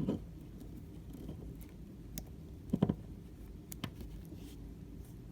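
Stainless steel watch bracelet clinking and its clasp clicking as the watch is fastened on the wrist: a few scattered light metallic clicks, two close together near the middle.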